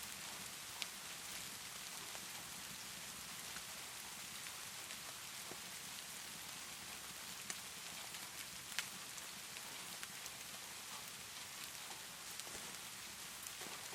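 Steady rainfall hissing evenly, with a few sharp crackles from a wood fire, three of them standing out about a second in and around the middle.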